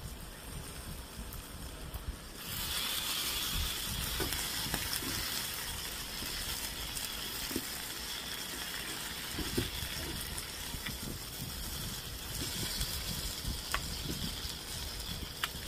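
Pork belly sizzling in a pan, a steady hiss that comes up suddenly a couple of seconds in, with faint clicks of chopsticks and soft eating sounds.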